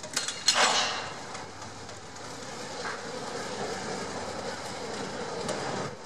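Tamar-class all-weather lifeboat launched down its slipway: two loud metallic bangs about half a second in as the boat is let go, then a steady grinding rumble as the hull slides down the keelway.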